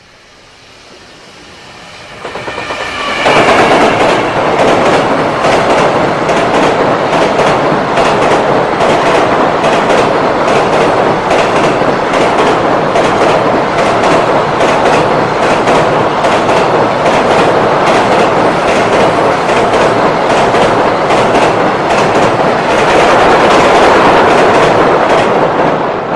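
A JR Freight train passes close by. It builds up over the first few seconds as the locomotive arrives, then the wagons clatter over the rail joints with a rapid clickety-clack. The train is still passing at the end.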